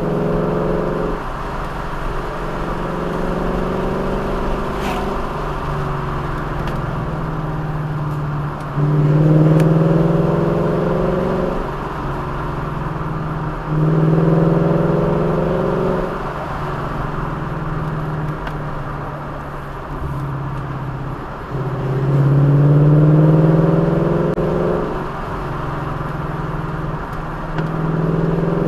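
Vehicle engine driving a winding road. It pulls harder, with rising pitch, for a few seconds at a time three times, and eases back between, over a steady haze of road and wind noise. A fourth pull begins near the end.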